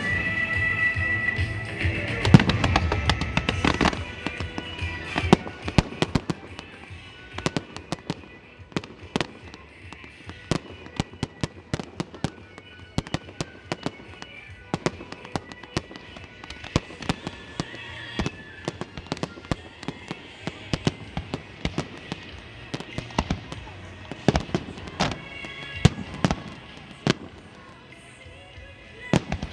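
Fireworks display: a dense run of loud bangs in the first few seconds, then many sharper crackling shell bursts and reports through the rest, with a second cluster near the end. Music plays underneath.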